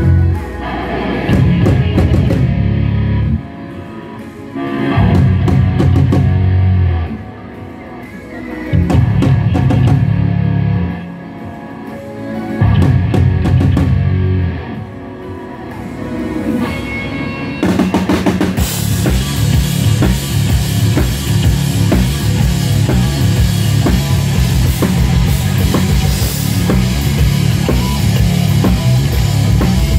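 A rock band's sound check through a concert PA: four short bass-heavy passages broken by pauses, then from a little past halfway steady drumming with the full band playing on.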